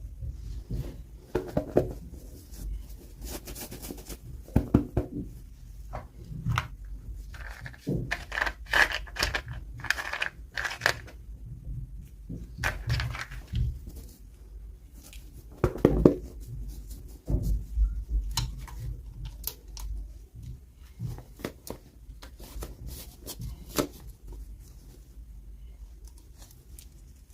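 Hands opening toy packaging: irregular tearing and crinkling of paper and plastic, with scattered small knocks and clicks.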